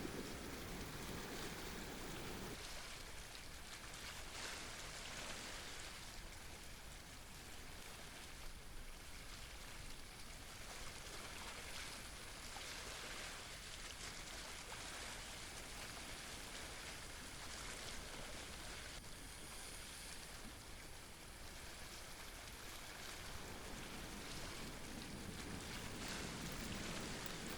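Sea waves washing against shore rocks, a steady hiss that swells every few seconds, with low wind rumble on the microphone at the start and again near the end.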